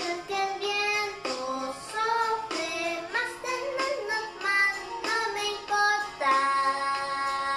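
A young girl singing, her voice moving from note to note with some notes held for about a second.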